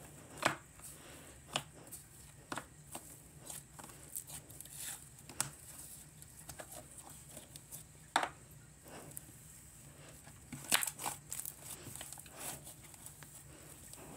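Frozen yogurt slime being worked by hand, giving irregular sticky clicks and pops, with a cluster of louder pops around eleven seconds in.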